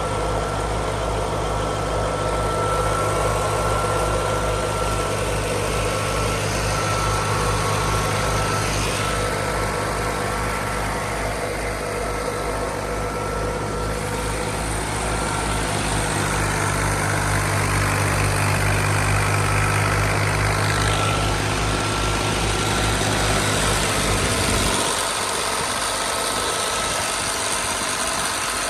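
Fiat 480 tractor's three-cylinder diesel engine running steadily, belt-driving a wheat thresher, with a steady high whine and noisy whirr from the threshing machinery on top. Near the end the low engine throb cuts out abruptly, while the higher whirr goes on.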